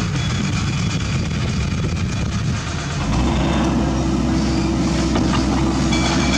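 Heavy diesel machinery running: the engines of a loaded dump truck and an excavator. About three seconds in the sound changes to a Komatsu PC200 hydraulic excavator's engine working as it lifts a precast concrete ditch section off the truck bed, with a steady low hum.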